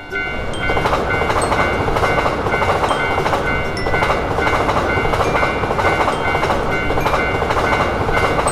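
Electric train passing at speed, a loud, dense, steady rumble of wheels on rails that comes in suddenly at the start. Thin high ringing tones run over it.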